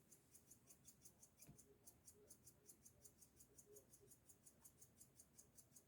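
Faint, fast, high-pitched pulsing chirr, about six even pulses a second, like a weird version of teeth chattering; a soft knock about a second and a half in.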